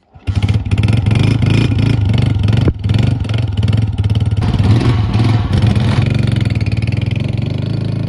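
A Honda single-cylinder four-stroke motorcycle is kick-started and catches at once, then runs steadily with an even rapid beat. Near the end it pulls away, and the sound eases slightly as it moves off.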